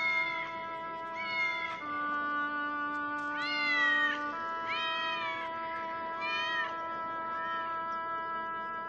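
Sustained musical chords with about six cat meows over them, each meow rising and then falling in pitch.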